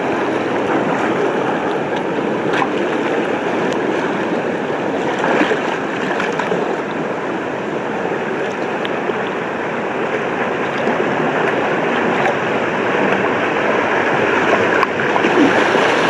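Rushing, churning water of a wild-river water slide channel, close to a camera riding at the water surface. Steady, growing a little louder near the end as the current gets rougher.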